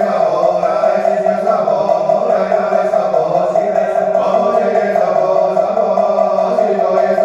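Buddhist devotional chanting: a continuous sung recitation with musical accompaniment over a steady held tone, without breaks.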